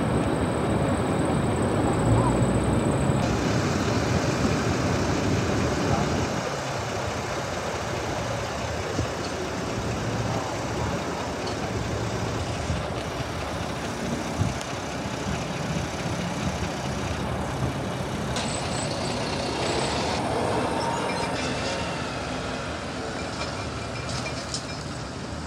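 Diesel engine of an empty roll-off container truck running, then moving off and growing fainter as the truck pulls away.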